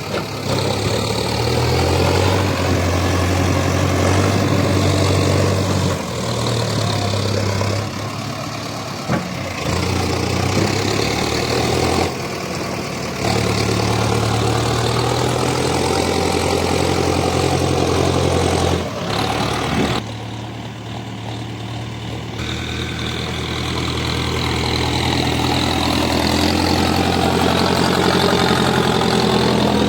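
Diesel engines of an excavator and a tractor running. The engine note rises and drops every few seconds as the load changes, and is at its loudest near the end.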